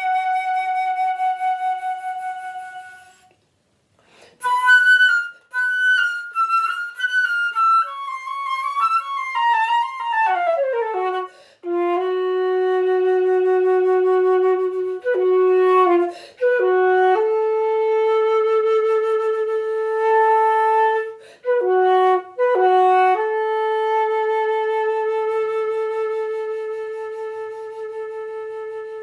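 Solo flute playing a slow, free passage. A long held note with vibrato breaks off into a brief pause, then a quick descending run leads into long low held notes, each broken by fast grace-note flourishes.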